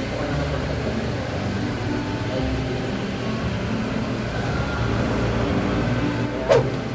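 Steady room hum with indistinct voices in the background, and a single sharp click near the end.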